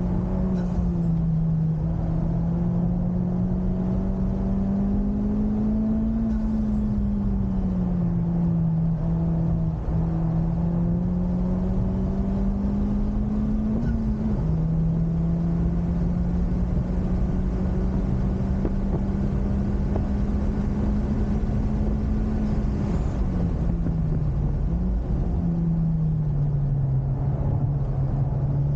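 Honda Civic Type R FK8's turbocharged 2.0-litre four-cylinder engine running hard at speed, its note rising and falling with throttle and gears, with a sudden drop in pitch about fourteen seconds in. Road and wind noise run underneath.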